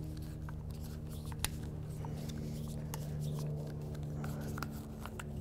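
Hand reaming tool twisted on the cut end of a short piece of schedule 40 PVC pipe, scraping a bevel: short scattered scrapes and clicks, the sharpest about one and a half seconds in, over a steady low hum.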